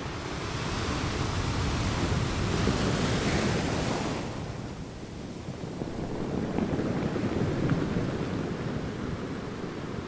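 Ocean waves surging and washing in, in two swells of surf. The first, brighter and hissier, builds for a few seconds and falls away fairly quickly about four seconds in; the second, lower and deeper, peaks near eight seconds and then eases.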